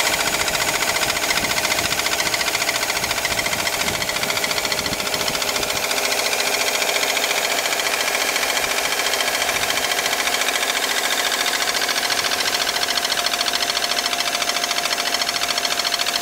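Subaru Impreza's EJ15 1.5-litre flat-four boxer engine running steadily with a rapid, even knocking: the knock the engine makes when cold.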